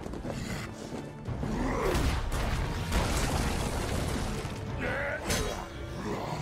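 Action-film fight soundtrack: music under heavy crashing impact effects, with sharp hits about two and three seconds in and again a little past five seconds.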